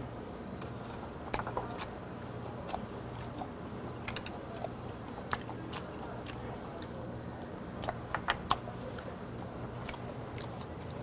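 A person chewing grilled beef, with scattered short clicks and mouth smacks and the tap of chopsticks, over a faint steady low hum.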